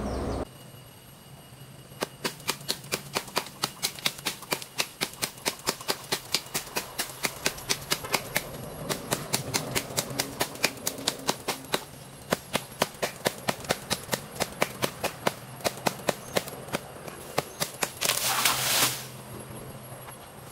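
Hand pruning saw cutting through a lychee branch in quick, even strokes, about three or four a second. Near the end comes a louder, noisy burst about a second long.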